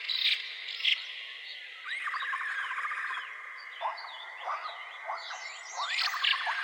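Forest ambience with several small animals calling over a steady background hiss: repeated short chirps, a fast pulsing trill from about two seconds in, and a couple of quick upward-sweeping calls.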